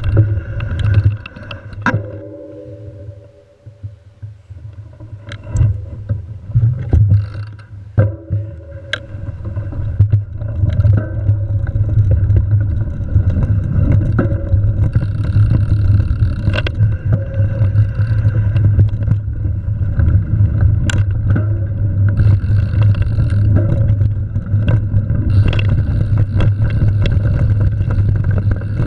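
Mountain bike ridden along a sandy dirt trail: tyres rolling over the dirt with a steady low rumble of wind on the camera's microphone. Sharp clicks and rattles come from bumps along the way, and the sound drops briefly about two seconds in.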